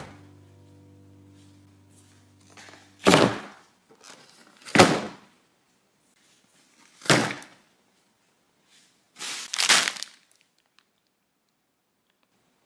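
Cardboard grocery boxes and packages set down one after another on a table: four dull thuds about two seconds apart, the last a quick double. Background piano music stops about three seconds in.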